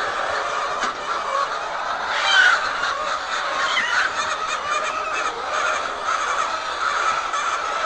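A large flock of laying hens calling over one another in a steady, dense chorus, with one louder call about two seconds in.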